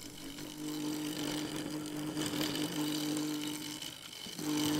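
Wood lathe running with a steady hum while a turning tool cuts the spinning yew and epoxy resin blank, a rough scraping noise over the hum. Both drop away briefly about four seconds in, then return.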